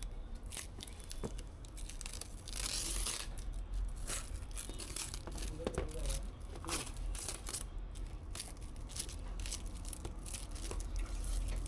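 Irregular clicks and rustling from objects being handled, with a longer crinkling rustle about two and a half seconds in.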